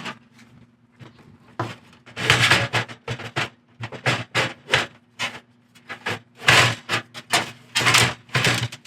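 Irregular clatter of a computer power supply being handled and fitted into a steel PC case: a quick run of knocks, scrapes and rattles of metal parts, over a faint steady hum.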